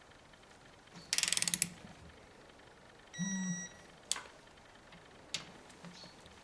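Torque wrench ratcheting a cylinder head bolt down in a quick run of clicks, then a short steady electronic beep, the wrench's signal that the bolt has reached the set torque of 25 N·m. A few single sharp clicks follow later.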